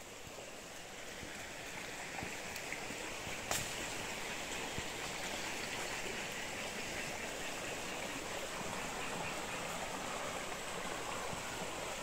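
Rushing river water, a steady hiss that grows louder over the first three seconds and then holds, with a single sharp click about three and a half seconds in.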